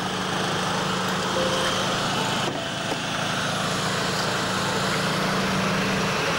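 A vehicle engine running steadily under a constant hiss. Its low hum cuts out about six seconds in.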